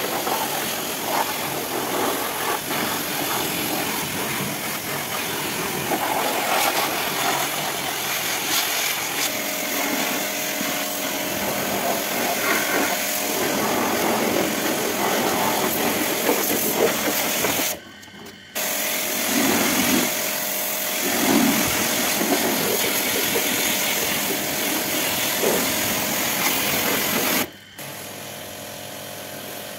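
Pressure washer running, its water jet spraying against a car's bodywork and rear wheel with a steady machine hum under the spray. It cuts out abruptly for a moment a little past halfway, and near the end drops to a quieter steady level.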